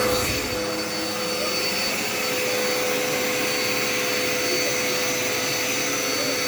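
Dirt Devil Endura Reach upright vacuum cleaner running steadily, a constant motor whine with a steady rush of air.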